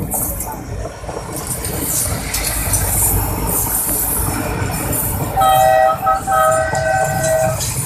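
Pakistan Railways diesel passenger train passing close by, its coaches rumbling over the track. About five seconds in, the train horn sounds for about two seconds with a brief break in the middle, the loudest part.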